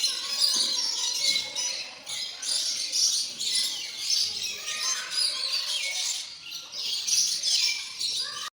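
A flock of small birds chattering and chirping together in a dense, continuous twitter, with brief lulls twice.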